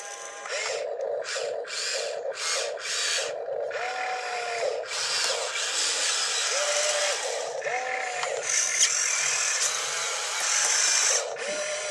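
Small electric motors and gearboxes of a toy RC excavator whining in short spurts as the boom, arm and bucket move, the whine rising and falling in pitch with each movement.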